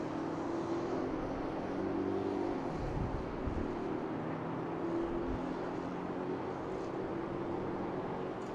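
A steady, low mechanical drone of distant outdoor ambience, with a wavering hum whose pitch shifts every few seconds, like far-off traffic and machinery.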